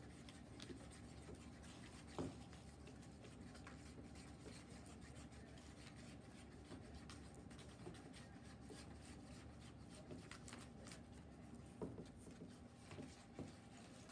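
Faint scraping and ticking of utensils stirring glue and colouring in bowls, with a few louder taps against the bowl, the clearest about two seconds in and near the end.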